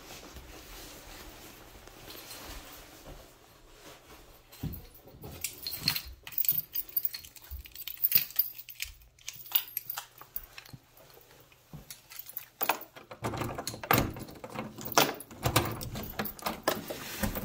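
A bunch of keys jangling and clicking on and off, starting about five seconds in and busiest near the end, as a room key is handled at a door lock.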